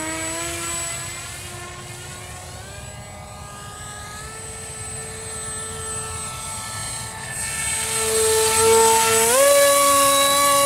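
Electric motor and propeller of an FF-23 foam-board RC plane whining in flight, its pitch climbing in steps with the throttle. About nine seconds in it jumps sharply higher and louder as the plane hovers low over the grass.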